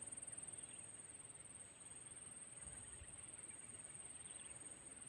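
Near silence with faint outdoor ambience: a steady high-pitched insect drone with a soft pulse about once a second.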